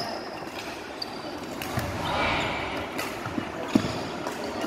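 Badminton rackets striking shuttlecocks: short sharp hits about a second apart, the sharpest about three-quarters of the way through, over the echoing chatter of a busy sports hall.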